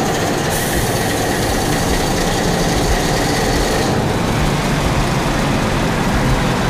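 Large multi-cylinder inline marine diesel engine running steadily in a ship's engine room, a loud continuous machinery noise. A higher hiss joins it from about half a second in until about four seconds in.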